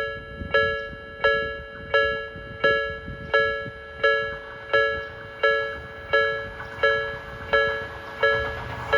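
Japanese railway level-crossing warning bell ringing at an even pace, about three strikes every two seconds, each stroke fading before the next. It signals that a train is approaching and the crossing is closed.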